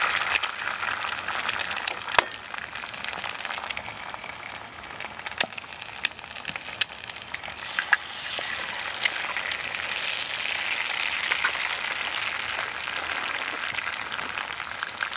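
Eggs and black pudding frying in oil in a cast iron pan: a steady sizzle with scattered sharp pops of spitting fat, the sizzle growing louder about halfway through.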